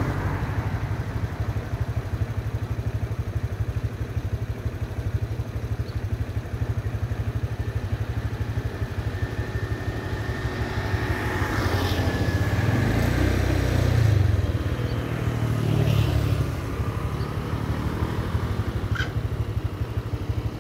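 An engine running steadily with a low, even rumble, growing louder for a few seconds past the middle, with a few faint clicks.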